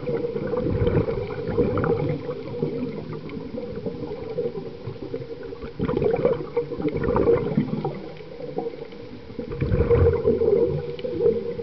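Scuba diver's regulator breathing underwater: exhaled bubbles gurgle in three surges a few seconds apart, over a steady hum.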